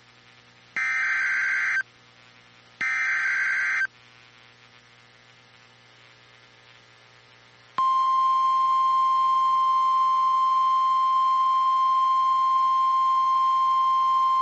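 NOAA Weather Radio SAME alert header: two one-second bursts of buzzy digital data tones, a second apart. After a pause, the steady 1050 Hz warning alarm tone starts about eight seconds in, signalling that a weather warning is about to be broadcast.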